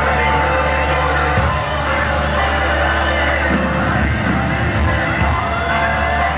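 Live rock band playing loud through a PA, with distorted electric guitars and drums, and a guitar pitch sweep rising near the end.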